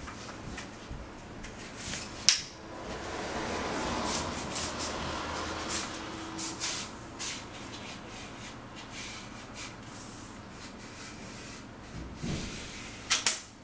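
Fiberglass tubes of a telescoping height stick sliding and rubbing against each other as the smaller tubes are fed through the big tube, with a few sharp clicks and knocks, the loudest about two seconds in and near the end.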